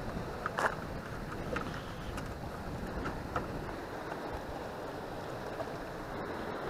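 Steady wind rumble on the microphone, with a few short light clicks in the first three seconds or so.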